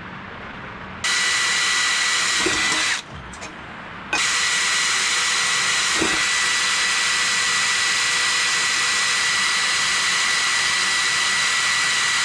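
Cordless drill running at speed, boring holes through the corners of a thin metal sprocket guard plate: a short run of about two seconds that winds down, a pause, then a longer steady run with a high whine.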